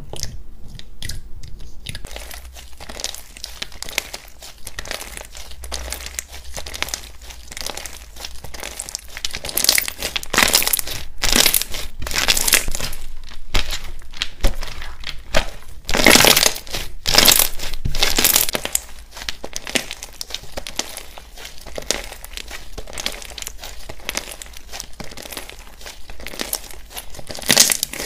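Hands squishing, stretching and pulling apart thick white slime, giving a dense run of small crackles and pops, with louder spells as the slime is pulled and squeezed.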